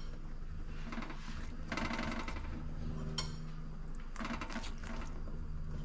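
A basting brush dabbing oil and soy sauce onto whole mackerel on a wire rack, heard as a few short spells of rapid scratchy ticks, with a single light clink a little after three seconds. A steady low hum runs underneath.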